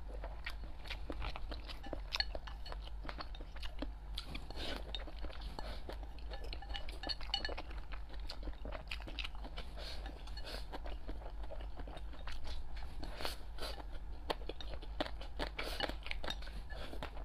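A person chewing and eating, with many short clicks of wooden chopsticks against a bowl.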